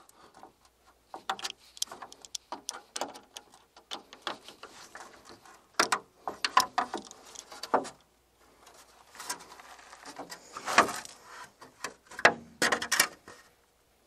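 Scattered clicks, knocks and plastic rattles of the Ford Ranger Electric's chrome front grille being worked loose from its mounts by hand, with a few sharper knocks past the middle.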